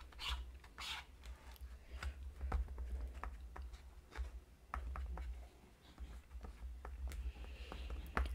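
Metal palette knife scraping and tapping on a plastic ice cream lid as it mixes texture paste with ink: a string of small, irregular clicks and scrapes.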